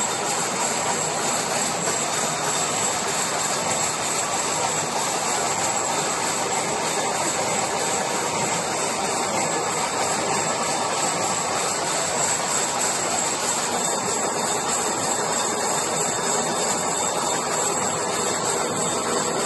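Gear hobbing machine running, its hob cutting the teeth of a helical steel gear: a steady, even mechanical cutting noise.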